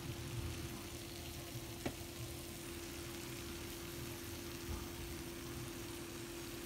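Jerk chicken pieces and onions sizzling in their juices in a foil-lined pan in a hot oven, a steady crackling hiss over a low steady hum, with one sharp click about two seconds in.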